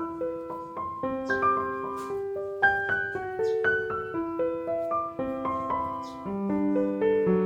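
Background piano music: a melody of short single notes over longer held lower notes, with a lower bass line entering about six seconds in.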